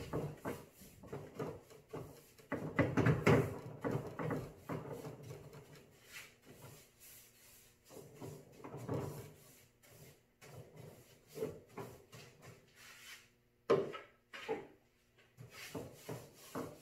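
Paintbrush working paint onto a wooden cabinet door: irregular bursts of brushing and light wooden knocks, the busiest stretch about three seconds in.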